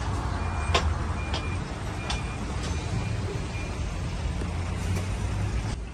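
A vehicle's reversing alarm gives a short high beep about every 0.8 seconds, fading out about halfway through, over a steady low engine rumble, with a few sharp clicks.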